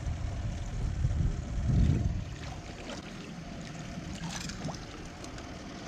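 Water splashing and trickling around a landing net as a netted coho salmon is handled and lifted out beside the boat, over a low rumble that is loudest in the first two seconds.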